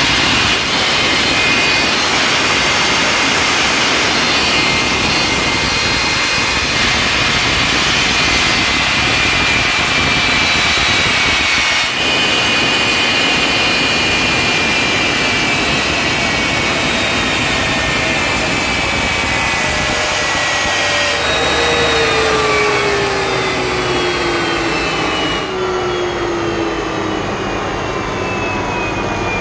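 Westinghouse J34 turbojet engine running on a pontoon boat: a loud roar with a high turbine whine. About 21 seconds in, the whine starts dropping steadily in pitch as the engine winds down.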